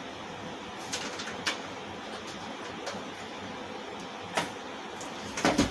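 A few scattered light clicks and knocks over a steady hiss, with a quick cluster of louder knocks near the end.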